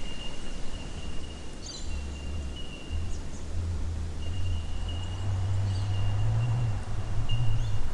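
Bushland ambience: a steady high-pitched insect trill that starts and stops every second or two, a few short bird chirps, and a continuous low rumble underneath.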